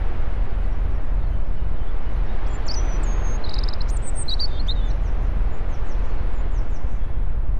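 Steady low outdoor rumble of wind, with a bird chirping and twittering a few times in the middle.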